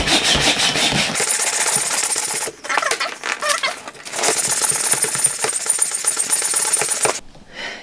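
Air pump inflating an inflatable travel cushion: a loud, fast-rattling rush of air in two long stretches, with a short break about two and a half seconds in, stopping about seven seconds in.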